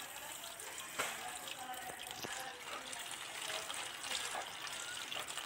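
Tap water running in a thin stream into a woven bamboo basket of small fish while a hand stirs and rubs the fish against the weave to wash them, with a few light knocks.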